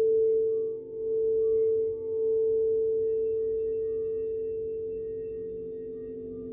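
A frosted crystal singing bowl being sounded, holding one pure, steady tone that swells and dips about once a second, then fades slowly over the last few seconds.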